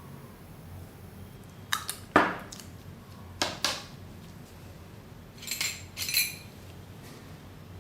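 Stainless-steel spoon knocking and clinking against a small jar as the sugar lip scrub is spooned in. There are sharp knocks, the loudest about two seconds in, two more about three and a half seconds in, then a short ringing clink near six seconds.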